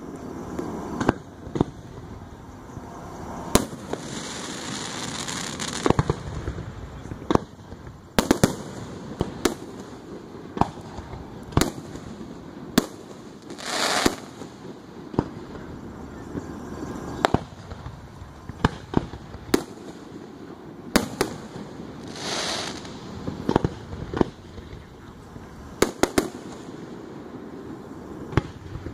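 Aerial fireworks display: shell bursts going off as a string of sharp bangs at irregular intervals. Three times there is a longer hissing, crackling stretch of about a second.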